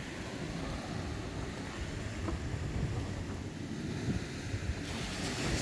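Wind buffeting the microphone over surf washing on the beach, a steady low rumble with a few faint clicks.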